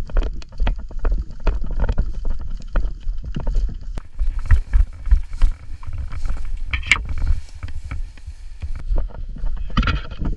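Running footsteps through tall dry grass, the stalks swishing and crunching against legs and gear in quick irregular strokes, with wind buffeting the microphone.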